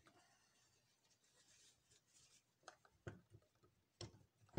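Faint rustling of a paper towel wiping excess grease off a stand mixer's gear housing, followed by a few small clicks and knocks as parts are handled during reassembly.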